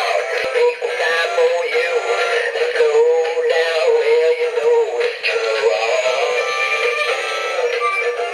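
A battery-powered walking musical turtle toy playing a really loud electronic song, with a synthesized singing voice over a tinny tune.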